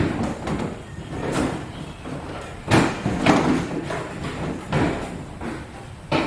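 A run of irregular knocks and clunks, about six in all, with quieter handling noise between them.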